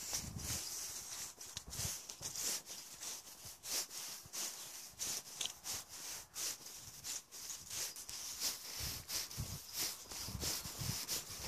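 Footsteps walking along a grassy path with dry fallen leaves, a step at a steady walking pace, with rustling and the rub of a handheld phone.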